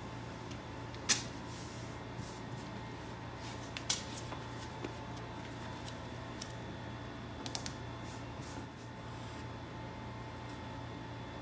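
Masking tape being handled on a car hood: a few sharp clicks and short crackles of tape, the loudest about a second in and a cluster later on, over a steady low hum.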